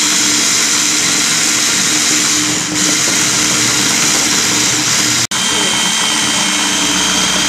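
Electric hand mixer running at speed, its twin wire beaters whipping coffee, sugar and water into a thick foam in a glass bowl. The noise is steady with a low hum, breaks off for an instant about five seconds in, then carries on with a thin high whine added.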